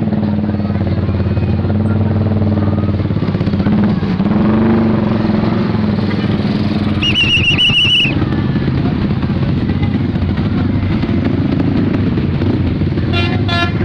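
Vehicle engine running with a steady low drone. About seven seconds in, a high wavering tone sounds for about a second, and near the end a telolet-style musical bus horn starts to sound.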